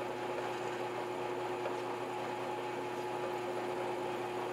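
Drill press running with a steady hum while a DeWalt step drill bit cuts into medium-hardness steel.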